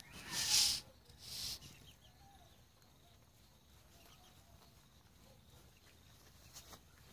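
Two short rustling bursts in the first second and a half, then faint soft peeping of ducklings foraging in loose soil.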